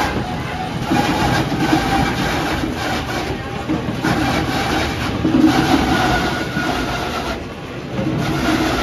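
Machinery of an old water-powered cider mill running: a steady rumble with clatter that carries on unbroken.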